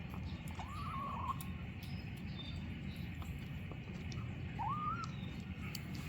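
Young kitten, about five weeks old, making two short high squeaky calls while eating sardines, one about a second in and one near five seconds, with scattered small clicks in between.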